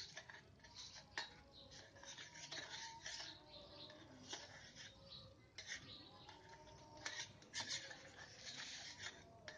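Faint scraping of a metal spoon stirring round a small ceramic bowl, mixing custard powder into cold milk so it dissolves without lumps: an irregular run of soft scratchy strokes, with a sharp clink about a second in.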